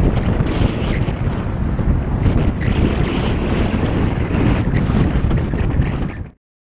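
Wind buffeting the microphone of a camera on a moving bicycle, with road traffic underneath; it cuts off abruptly about six seconds in.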